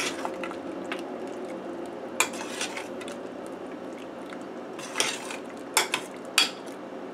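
A metal spoon stirring and mashing soft cooked pinto beans in a metal pressure cooker pot. It gives irregular clinks and scrapes against the pot's side, with several sharp clinks close together near the end.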